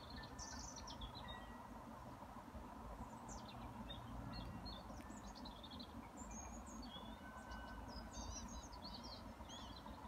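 Small birds chirping and trilling in short, scattered high-pitched calls, over a faint steady background noise.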